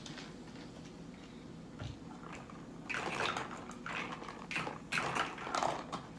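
Liquid splashing and sloshing in a plastic tumbler as the cup is handled, in irregular spurts through the last three seconds, after a soft low thump about two seconds in.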